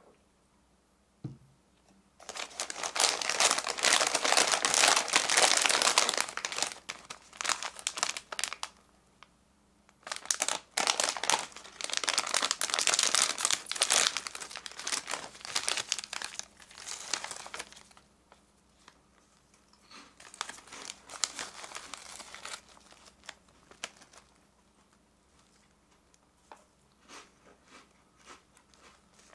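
Thin clear plastic bag of a snack pack crinkling loudly as it is torn open and the snack packets inside are rummaged and pulled out, in two long spells with a pause between, then softer scattered crinkles. Before it, about a second in, there is a single short knock.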